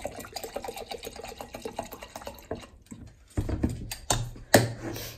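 Rubbing alcohol pouring from a plastic jug into a glass mason jar with a rippling trickle that stops after about two and a half seconds. It is followed by a few knocks and a sharp clunk, loudest near the end.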